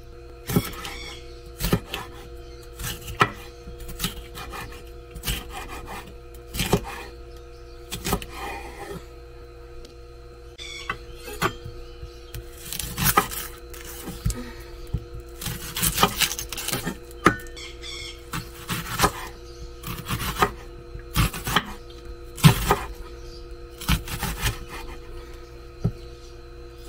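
Kitchen knife slicing a green bell pepper and then an onion on a wooden cutting board: irregular knocks of the blade against the board, sometimes several in quick succession.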